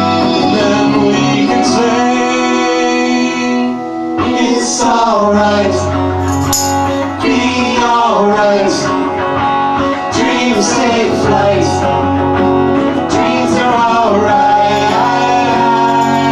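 Live band performing a song: several voices, men and a woman, singing together over guitar accompaniment.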